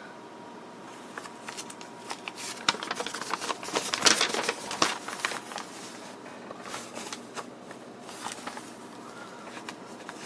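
Thin newsprint-like paper sheets being handled and turned, rustling and crinkling in short bursts, busiest from about two and a half to five seconds in and again briefly around seven to eight seconds.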